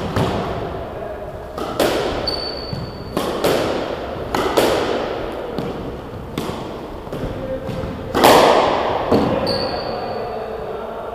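Squash rally: the ball cracks off rackets and the court walls about once a second, each hit echoing around the enclosed court, the loudest a little after eight seconds in. Court shoes squeak twice on the wooden floor.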